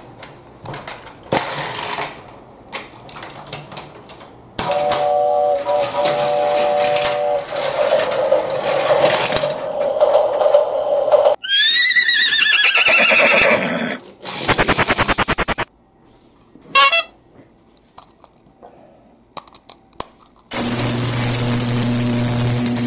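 Battery-powered Thomas & Friends toys playing electronic sound effects: a short tune, a rising-and-falling whistle, and buzzing tones, with light clicks of plastic being handled in between.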